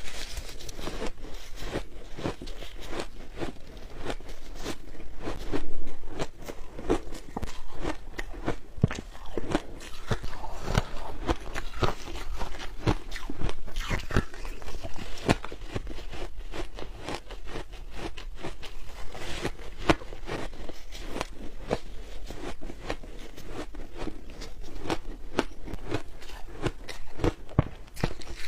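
Close-up crunching and chewing of ice: dense, irregular crunches many times a second, with a louder bite about six seconds in.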